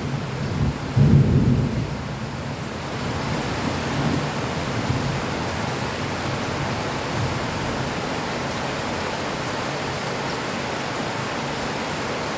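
Rain falling steadily, with a low rumble of thunder in the first two seconds that dies away into the even sound of the rain.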